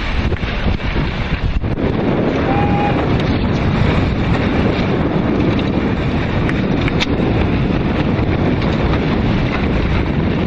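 Strong wind buffeting the microphone: a loud, steady rumbling noise, heaviest in the low end.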